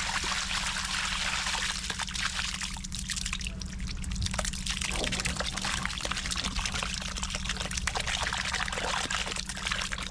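Water pouring and trickling out of a drain being unclogged, with many small splashes and crackles, over a steady low hum.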